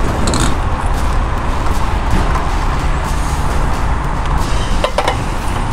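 A motor vehicle engine idling steadily, a low even hum, with a couple of light clicks about five seconds in.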